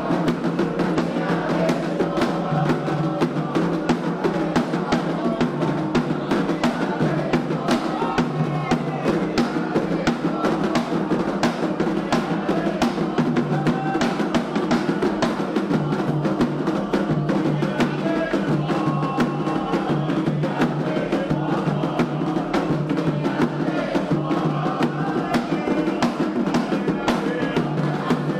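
Candomblé ceremonial drumming on atabaque hand drums, a fast, unbroken rhythm of many strokes a second.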